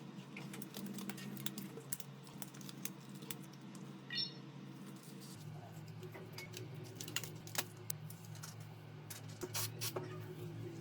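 Scattered small clicks and taps of a smartphone and its parts being handled during repair, over a low steady hum whose tones shift lower about five seconds in.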